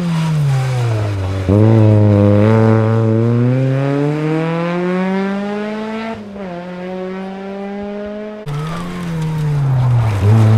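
Rally car engine accelerating hard: the revs climb for several seconds, drop sharply at a gear change about six seconds in, climb again, then fall away near the end.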